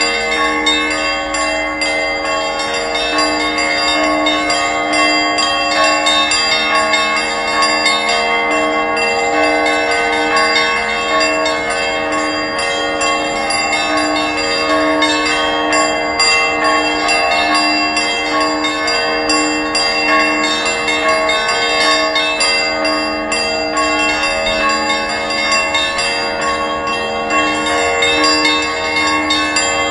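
Several church bells ringing together, a dense, unbroken peal of overlapping strikes whose tones keep sounding into one another.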